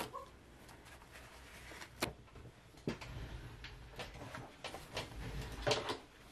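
Handling noises on a work table: a few sharp light clicks and knocks, one near the start, one about two seconds in, one about three seconds in and a couple close together near the end, over quiet room tone.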